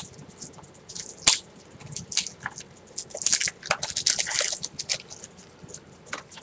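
Plastic Blu-ray case being opened and handled: a sharp click about a second in, then crinkly plastic rustling that thickens around three to four seconds in.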